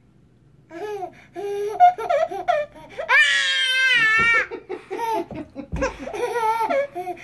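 Dog howling with its head thrown back: a run of short rising-and-falling yowls, with one longer, wavering howl about three seconds in. A baby laughs along.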